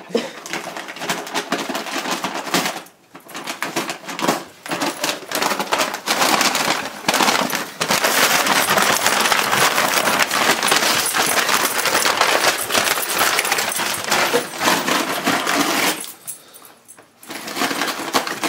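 Brown paper bag crackling and tearing as an Australian Terrier chews and shreds it: a dense run of crinkles and rips. It is loudest in the middle stretch, with short lulls about three seconds in and near the end.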